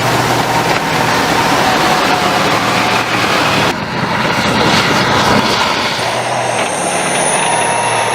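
Military tank sound effect: a heavy engine running with a steady low hum under a dense rattling noise. There is a cut about four seconds in, and a high whine rises in near the end.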